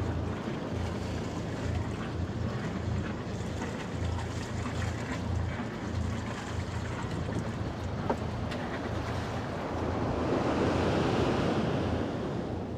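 Wind buffeting the microphone over the wash of the sea, with a large wave breaking on the beach near the end as a swelling rush of surf.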